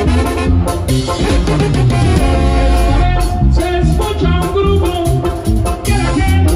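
Upbeat Latin-style music with a steady beat.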